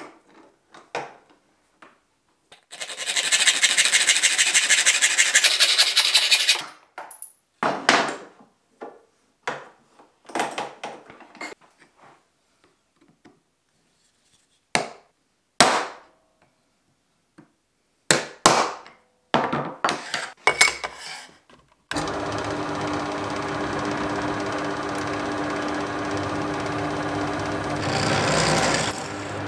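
A file rasping on the edge of an aluminium sheet for a few seconds, then scattered clicks and taps from a centre punch marking the metal. Later the Scheppach DP18 Vario drill press motor starts and runs steadily, growing louder near the end as the bit cuts into the aluminium.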